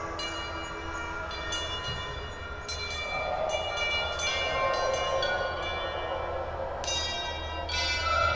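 Ambient electronic soundscape of layered, sustained tones. New bright, bell-like chords enter abruptly every second or so and ring on over a hissing wash and a steady low hum.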